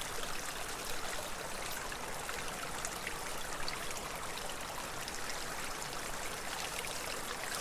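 Small mountain creek running steadily, a continuous rushing trickle of water.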